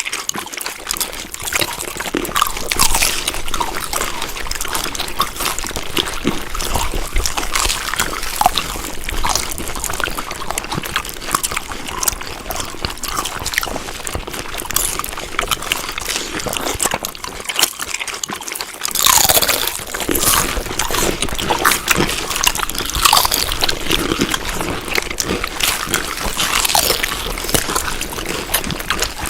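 Close-up chewing: wet, crunching mouth sounds of someone eating, with a louder stretch about two-thirds of the way in.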